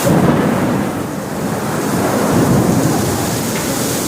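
A thunderclap from a nearby lightning strike: a sudden loud crack that rolls on as a low rumble for several seconds, swelling again about halfway through, with rain falling.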